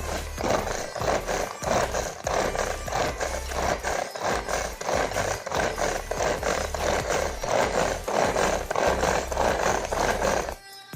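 Vegetable chopper cutting vegetables, its blades rattling and scraping in quick repeated strokes, about three a second, that stop near the end.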